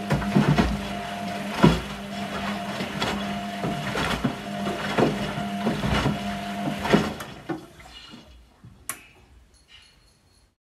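Front-loading washing machine tumbling a wet load during a dye wash: a steady motor hum with clothes and water sloshing and thudding irregularly in the drum. After about seven seconds the drum stops and it goes much quieter, with one click near the end.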